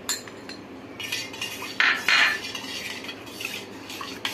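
A metal spoon scraping and clinking against a glass bowl and a stainless steel bowl while stirring coconut milk. There is a sharp clink at the start, and the loudest scrapes come about two seconds in, followed by lighter clinks.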